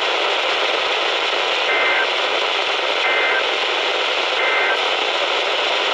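Weather-radio static, a steady hiss, broken by three short buzzy chirps of the EAS (SAME) digital data code about a second and a half apart. Their shortness fits the end-of-message signal that closes an alert.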